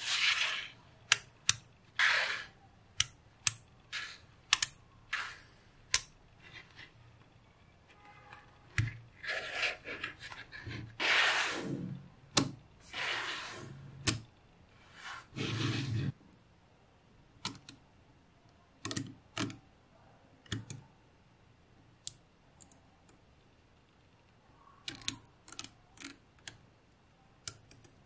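Small magnetic balls clicking and snapping together one after another, at an irregular pace, with a few longer rattles as strings of balls slide and clatter into place.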